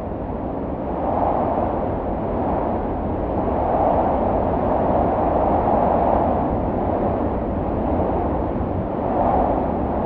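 Gusting wind: a steady rushing noise that swells and eases every two or three seconds.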